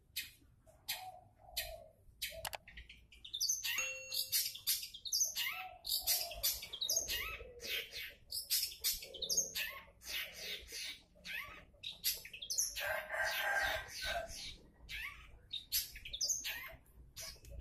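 Long-tailed shrike (cendet) singing a fast, continuous run of short, scratchy chirps and sweeping notes, densest about three-quarters through.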